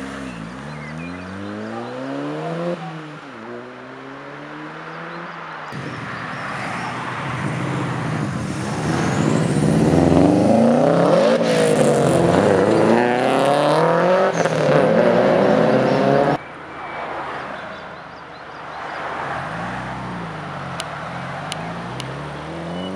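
Modified car engines revving and accelerating away one after another, the engine note repeatedly rising in pitch. The loudest stretch is in the middle, where a car pulls hard and several rising engine notes overlap.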